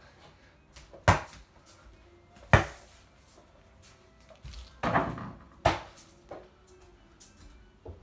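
Mini basketball hitting an over-the-door hoop, the wooden door and the floor: a run of sharp thuds, the loudest about one and two and a half seconds in, then a rattling cluster around five seconds and a couple of lighter knocks after.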